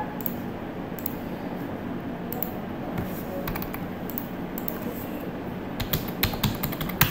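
Computer mouse and keyboard clicks: a few scattered clicks, then a quick run of keystrokes about six seconds in as a password is typed.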